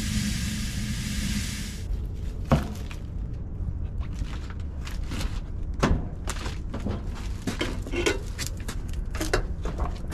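Nitrogen blowing through a mini-split line set into a flush-kit catch bucket with a loud hiss that cuts off sharply about two seconds in. Scattered knocks and clunks follow as the condensing unit is handled, over wind rumble on the microphone.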